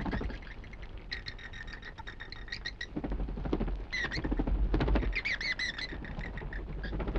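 A colony of bats squeaking and chittering in rapid, high-pitched chirps, with a denser, louder flurry between about three and five seconds in.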